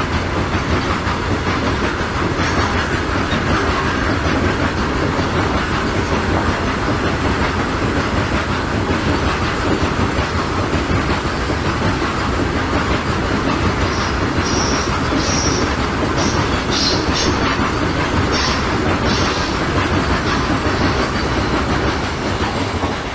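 Goods train wagons rolling past at speed with a steady rumble and the clickety-clack of wheels over rail joints. Short, high wheel squeals come and go through the second half.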